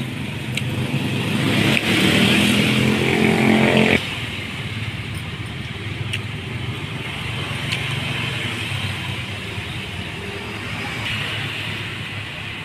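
A motor vehicle's engine passing close on the road, loud with a rising pitch for the first few seconds, then dropping away suddenly about four seconds in to a steady traffic rumble.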